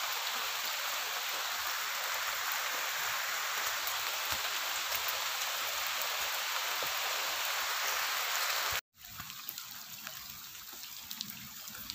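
Steady rain falling on foliage and water, a dense even hiss. About nine seconds in it cuts off abruptly and comes back quieter, with scattered ticks of drops.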